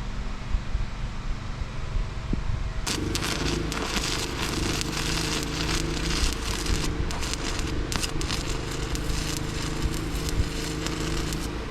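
Stick-welding arc struck about three seconds in, then crackling steadily with a welder's hum under it and a few short breaks. The 1/8-inch rod feels to be burning a little cold, the welder short of power for that rod size.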